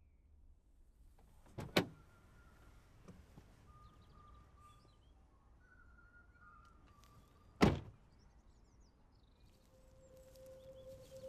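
A car door unlatching with a sharp double clunk, then about six seconds later a car door shutting with one heavier thunk. Faint high chirps sound in between, and a soft held music tone comes in near the end.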